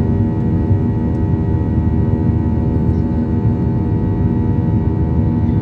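Jet airliner's turbofan engines at climb power, heard inside the cabin just after takeoff: a steady loud rumble with a layer of constant humming tones.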